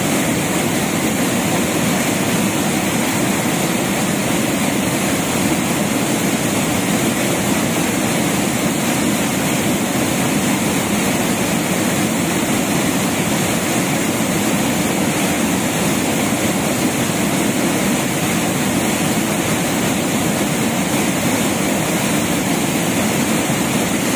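Floodwater rushing across a road in a fast, churning torrent: a loud, steady noise of moving water.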